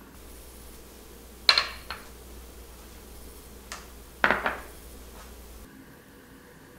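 Glass bowls clinking against each other or the countertop as they are handled: two sharp clinks about three seconds apart, each followed by a lighter second knock, with a faint tick between.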